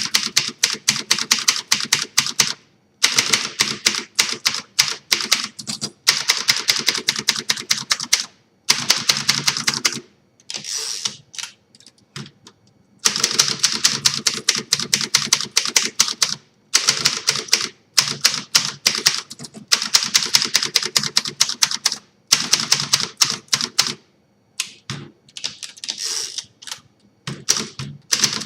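1953 Hermes 2000 manual portable typewriter being typed on: fast runs of key strikes, several a second, broken by short pauses.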